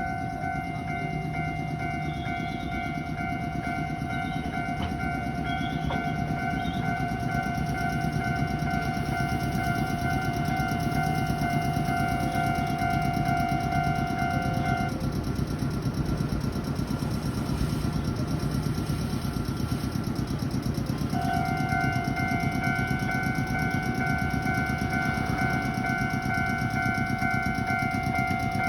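Japanese level crossing warning bells ringing steadily with a high clanging tone. They stop about halfway through and start again some six seconds later. Underneath runs the steady low rumble of an Iyo Railway train at the station.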